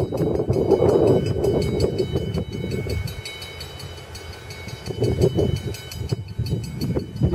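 Two EMD SD40-2 diesel locomotives approaching with their engines rumbling, the sound dipping in the middle and building again from about five seconds in.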